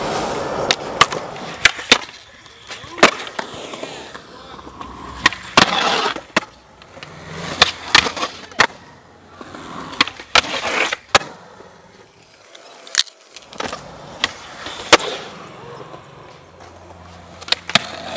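Skateboard wheels rolling on concrete, broken by many sharp pops and clacks of the board as tricks are popped and landed. Several times the trucks scrape along a concrete ledge in a grind.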